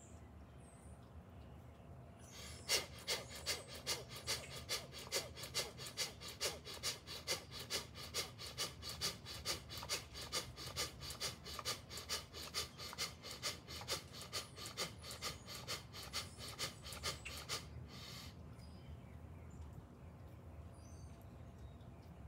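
Rapid, forceful rhythmic breathing of bhastrika/kapalabhati pranayama, about three sharp breaths a second. It starts about three seconds in and stops after about fifteen seconds with one softer last breath, leaving the breath-retention pause quiet.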